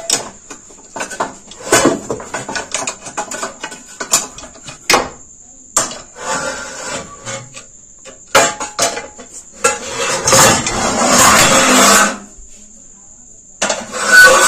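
Metal snake hook knocking, clanking and scraping against stored household things as they are pushed and moved on a concrete floor, a string of irregular knocks, then longer rattling, scraping stretches near the end.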